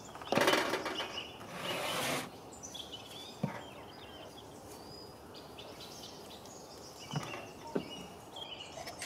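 A loud rushing noise lasting about two seconds near the start, then quiet open-air background with faint bird chirps and a few light knocks.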